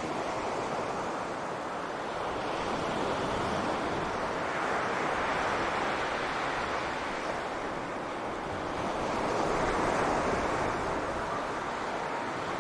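Sea waves breaking on a beach, a steady rush of surf that swells twice, about five and ten seconds in. Some wind on the microphone.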